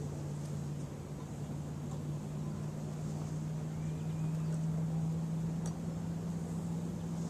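A motor running with a steady low hum, its pitch creeping slightly higher, then stopping abruptly near the end.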